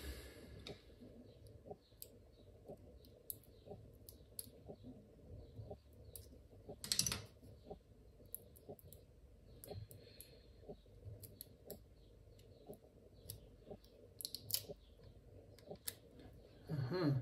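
Scattered small clicks and taps of hard plastic parts being handled and worked loose from a bike light's cylindrical battery cell, with one louder knock about seven seconds in.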